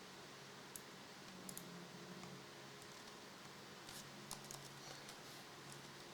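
Faint, scattered clicks of a computer mouse and keyboard, a few irregular taps over a low steady electrical hum.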